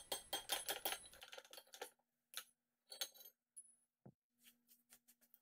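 Hammer tapping a punch into the eye of an old hatchet head resting on a steel anvil: sharp metallic clinks, a quick run of them in the first second, then scattered single taps. The taps are driving out a rusty nail and the rotted handle wood left in the eye.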